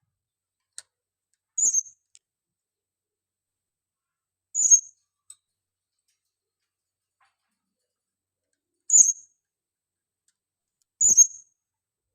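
Female blue-crowned hanging parrot calling: four short, very high-pitched squeaky calls a few seconds apart, the contact call it uses to call other hanging parrots to it.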